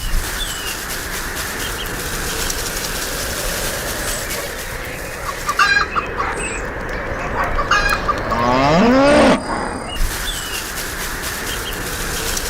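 Farm-animal ambience: a steady background hiss with small bird chirps, and one longer rising animal call about eight seconds in.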